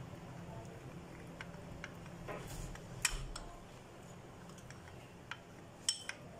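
A spoon stirring cornflour and water into a slurry in a small glass bowl: faint scattered clicks of the spoon against the glass, with two sharper clinks, about three seconds in and near the end.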